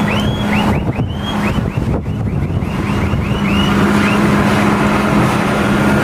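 Farm tractors driving past on a road: a steady engine drone over road noise, with wind on the microphone. A run of short, high falling chirps sounds over the first four seconds or so.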